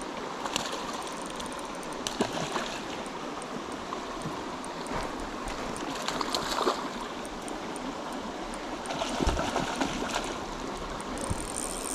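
Steady rush of a small creek, with rainbow trout splashing at the surface of the pool about halfway through and again near the end.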